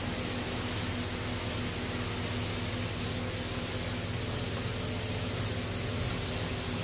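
Grass cutter (brush cutter) engine running steadily and noisy, an unchanging pitched drone with a constant hiss over it.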